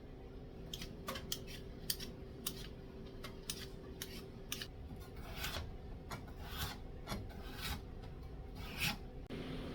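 Vegetable peeler scraping the skin off a potato in short, repeated strokes, about one or two a second.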